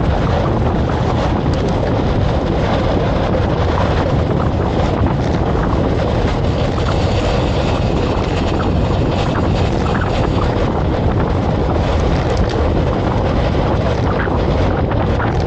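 Loud, steady wind noise rushing over the microphone, an even roar with no break or change.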